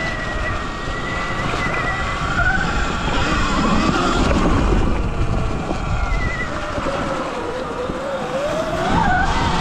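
Sur-Ron electric dirt bike riding: the electric motor's whine rises and falls in pitch with speed over a low rumble of wind on the microphone.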